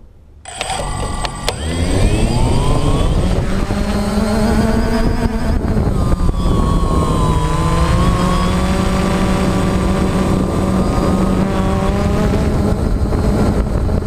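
A DJI Phantom quadcopter's electric motors and propellers start about half a second in. They spin up with a rising whine as it lifts off, then settle into a steady buzzing hum as it climbs and hovers. The sound is heard close up from a camera mounted on the drone itself.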